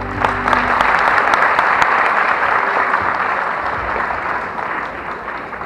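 Audience applauding at the end of a carol, slowly dying down toward the end. The last held chord fades out in the first half-second.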